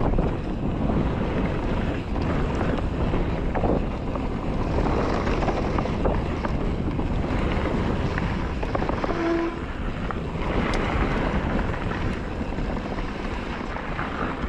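Mountain bike riding fast down a rough trail: steady wind buffeting the microphone, with the tyres and bike rattling and clattering over rough ground throughout. A brief tone sounds about nine seconds in.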